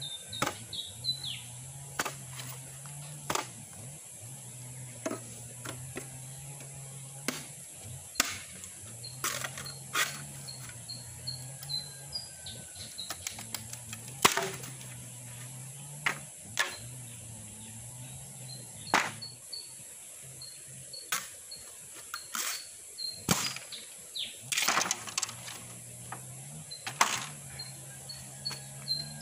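An old bolo knife chopping into the end of a green bamboo pole and splitting it: irregular sharp knocks and cracks every second or two, with a quick run of them about three-quarters of the way through. Birds chirp in the background.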